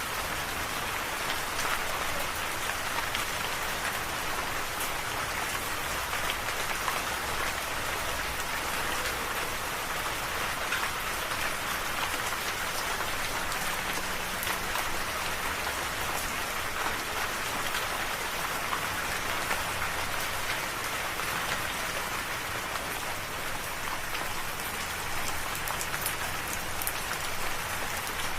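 Steady rain falling on a surface, an even patter of many drops with scattered sharper drop ticks.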